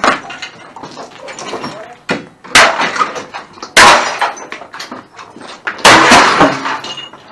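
Crowbar strikes smashing into piles of broken plastic electronics and glass: about five heavy crashes, each followed by clattering, shattering debris, the loudest about four and six seconds in.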